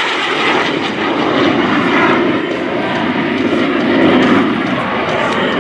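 A MiG-17 jet fighter's turbojet engine, heard loud and steady as the jet makes a high-speed pass.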